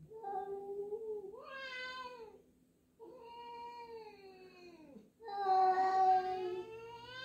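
Domestic cats yowling at each other in three long, drawn-out calls that fall in pitch at the end. The last and loudest starts about five seconds in. It is the hostile warning of a resident cat meeting a newly introduced one.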